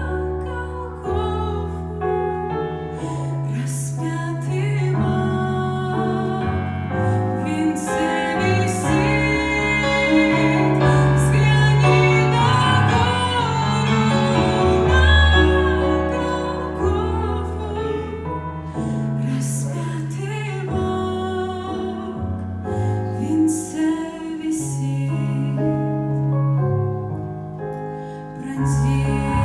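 A woman singing a slow church song over piano-like keyboard accompaniment with sustained bass notes.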